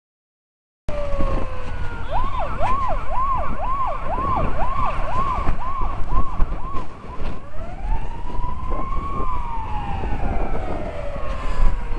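Fire engine siren. It falls away in a wail, switches to a fast yelp rising and falling about twice a second for some five seconds, then goes back to a slow wail that rises and falls. A low rumble of wind on the bike-mounted microphone runs underneath.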